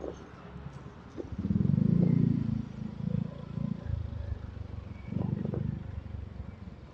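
Motorcycle engine revving up twice as the bike pulls away: a loud swell about a second and a half in, and a shorter one about five seconds in.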